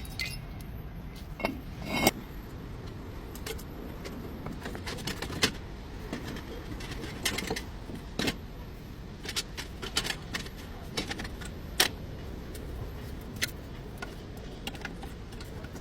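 Metal hand tools and parts clinking and clanking irregularly during hands-on repair work, a couple of dozen sharp strikes spread unevenly, over a steady low background hum.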